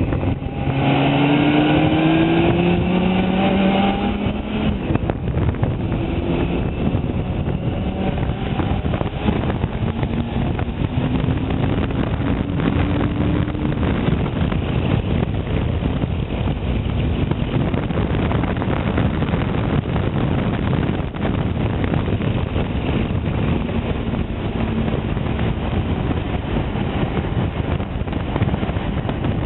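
Motorcycle engine accelerating, its pitch rising over the first few seconds, then steady riding under a heavy rush of wind and road noise, with the engine note faintly rising now and then.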